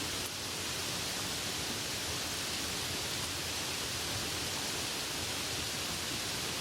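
Steady rain, an even hiss without distinct drops or thunder.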